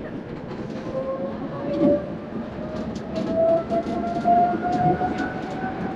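Electric tram heard from inside the car: the drive whine rises steadily in pitch as the tram gathers speed, over the rumble of the wheels on the rails, with small clicks and rattles.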